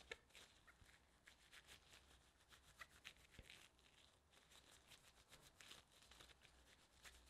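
Faint crinkling and rustling of disposable plastic gloves and plastic wrap as hands shape a lump of dough, many small irregular crackles throughout.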